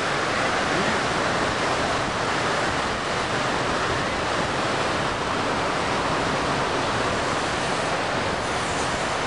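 Ocean surf breaking on a sandy beach: a steady, unbroken rush.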